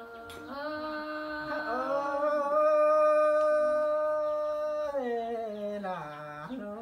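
Unaccompanied traditional Thái folk singing: a woman's voice holds one long drawn-out note for several seconds, then slides down in pitch near the end.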